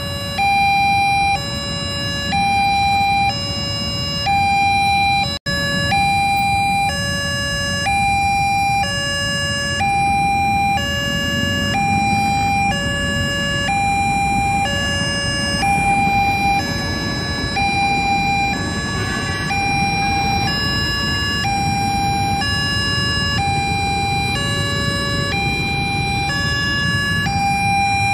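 Railroad crossing's electronic warning alarm sounding its two-note signal, a high and a low tone alternating about once a second, with road traffic noise underneath.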